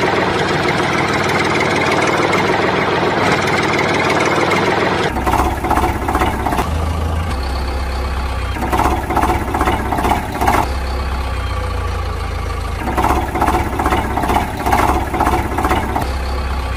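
Tractor engine sound running steadily. For the first five seconds it is a rough, busy idle. It then changes abruptly to a deep low hum, with two stretches of pulsing chugging a few seconds apart.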